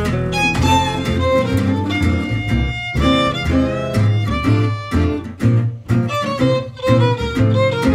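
Gypsy-jazz string quartet playing: a violin carries the melody over strummed acoustic guitars and an upright double bass.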